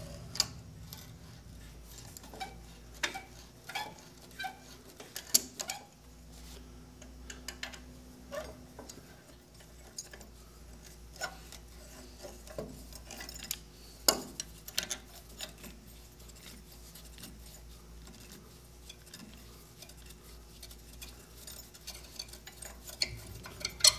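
Irregular light metallic clicks, clinks and knocks as the rust-stiffened blade-tilt shaft of an old Sears contractor table saw is worked out of its cast-iron housing, with a few louder knocks among them. A faint low hum runs underneath.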